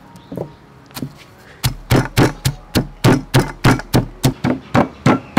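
Stone mortar and pestle pounding fresh lemongrass, galangal, turmeric, kaffir lime leaves and garlic for a spice paste. There are a couple of soft taps, then about a second and a half in a steady run of sharp knocks, about four a second.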